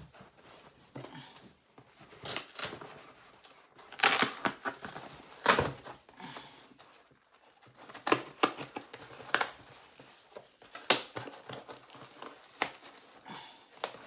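A parcel's packaging being torn open and crumpled by hand: irregular crinkling and ripping in sharp bursts, the loudest about four, five and a half, eight and eleven seconds in.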